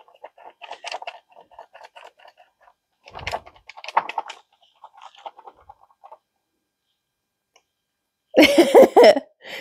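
Faint rustling and light clicks of handling noise as a notebook with a dangling string is waved about, with a soft thump about three seconds in. Near the end comes a short, loud vocal sound from a woman.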